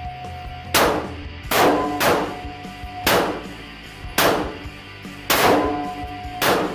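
A string of gunshots from a Ruger SP101 snub-nose .357 Magnum revolver, about seven sharp reports roughly a second apart, each with a short ringing echo.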